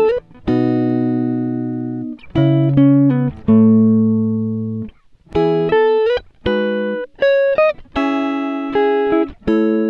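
Background music: a slow guitar tune of plucked notes and chords, each ringing out and fading before the next.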